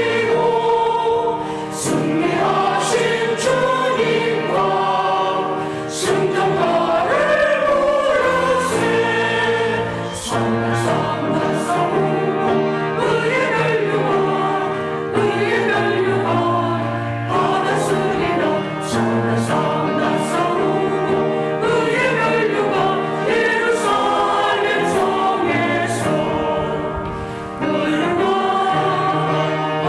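Church choir singing a hymn anthem in Korean, with sustained low accompaniment notes beneath the voices.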